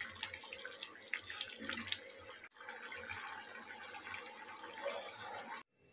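Thick coconut-and-dal gravy bubbling faintly as it simmers in a kadai, with a few light ticks and plops. It cuts off suddenly just before the end.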